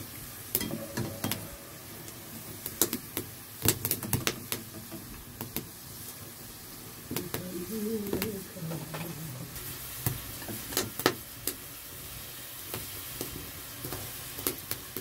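Chips frying in hot oil with a steady sizzle, and sharp clicks and knocks of a utensil stirring them in the pan.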